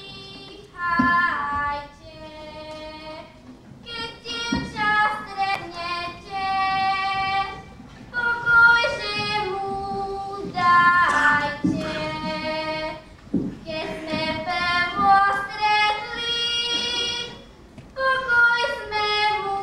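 A young girl singing a folk song solo and unaccompanied, in phrases of held notes with short breaths between them.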